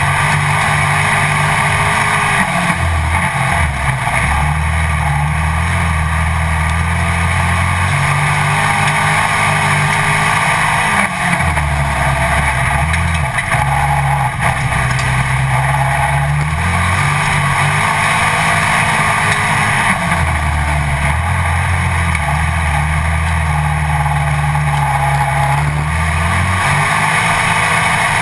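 Pro Stock dirt-track stock car's engine running at racing speed, heard from a camera mounted on the car, its pitch stepping up and dropping back every few seconds as it goes round the track, over a steady rushing noise.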